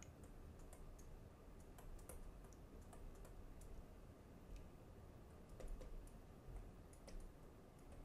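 Faint, irregular ticks and taps of a Raphael 530 stylus nib striking and sliding on a tablet's glass screen during handwriting.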